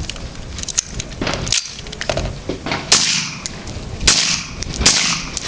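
Suppressed rifle firing a string of shots at uneven intervals, the loudest about three, four and five seconds in, each trailing off in a brief hiss.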